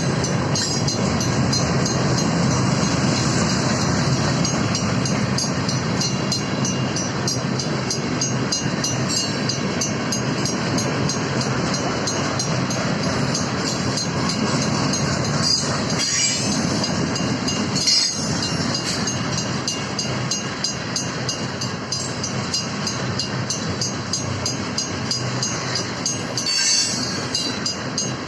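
Freight train rolling through a grade crossing, a steady rumble of wheels on rail, while the crossing's Western-Cullen-Hayes mechanical bells ring with rapid repeated strikes. A few brief sharp wheel squeals or clanks cut through, about 16, 18 and 27 seconds in.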